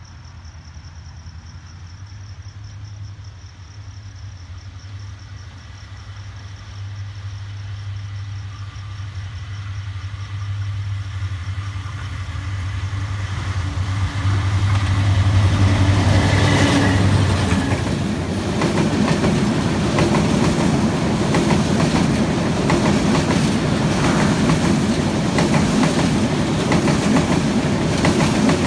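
A diesel locomotive of an intercity express running through on the next track: its engine hum grows steadily louder as it approaches, and it passes about halfway in. Its coaches then run close by with a steady, loud clickety-clack of wheels over the rail joints.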